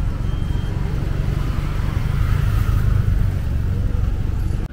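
Street traffic: a motor vehicle's engine and tyres running close by, swelling a little past halfway through and cutting off suddenly at the end.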